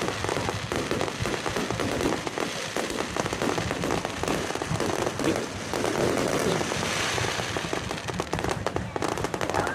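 Aerial fireworks going off in a dense, continuous crackle of many rapid small pops, with no single big bang standing out.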